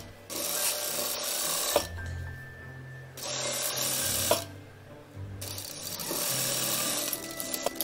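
Industrial sewing machine stitching a folded hem in three short runs, each ending in a click as it stops, over background music.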